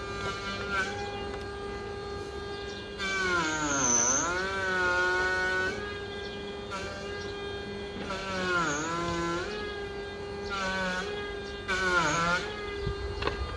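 A power saw held running at high speed, its pitch dropping each time it bites into the timber, with rough cutting noise during each cut: one long cut about three seconds in, then several shorter ones.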